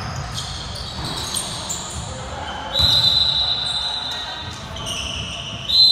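Basketball game on a gym floor: sneakers squeaking and the ball bouncing, then a referee's whistle blown about three seconds in and held for about two seconds, stopping play, and blown again near the end.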